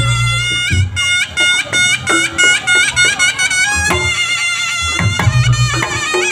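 Live reog gamelan accompaniment: a reedy slompret shawm playing a quick run of notes over drum and gong beats.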